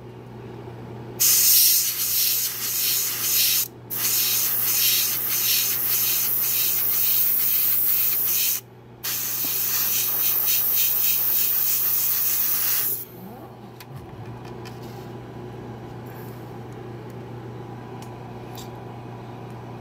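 Airbrush spraying Alclad II polished-aluminium lacquer, a steady hiss of air and paint in three passes: it starts about a second in, breaks off briefly twice, and stops about two-thirds of the way through.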